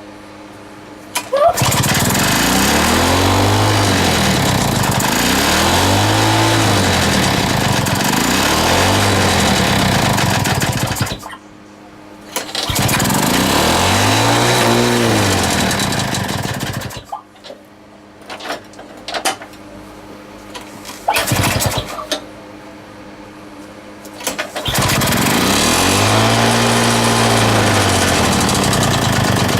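Small petrol lawn mower engine, rebuilt with a homemade big-end bearing shell, running with its speed rising and falling about every three seconds. It stops twice, with a few short bursts between the second stop and the restart near the end.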